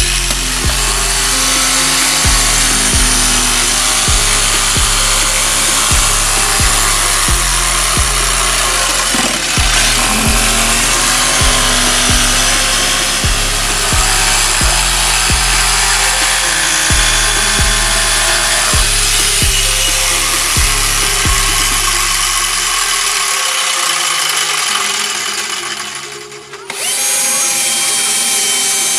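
Electric jigsaw cutting through a speaker box panel, a steady high rasping, over background music with a steady bass beat that stops a few seconds before the end. Near the end the sawing cuts off and a power drill with a hole saw spins up with a rising whine and bores into the side of the box.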